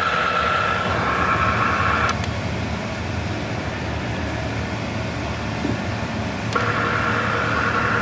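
Steady mechanical hum and whir from a minivan's wheel hub, played through the speaker of a Steelman ChassisEar chassis listening kit; a high whine in it drops out about two seconds in and comes back near the end. It is the hum of a suspected worn front hub bearing being traced.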